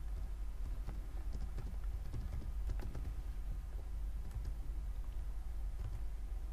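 Computer keyboard being typed on, irregular key clicks, over a steady low hum.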